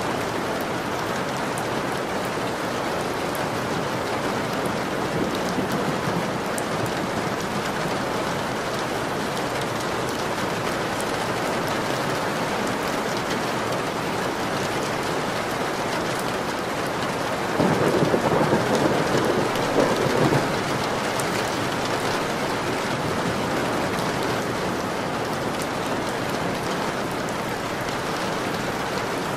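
Steady rain falling, with a roll of thunder lasting about three seconds a little past the middle.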